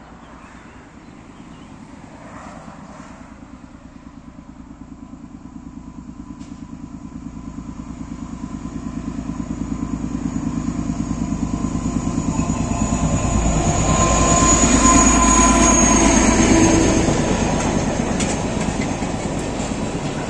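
Freight train hauled by a ČD Cargo class 742 diesel locomotive approaching, its diesel engine growing steadily louder and loudest about three-quarters of the way through as it passes, with a thin high ring of wheels on rail. Near the end, the empty double-deck car-carrier wagons rolling by on the track.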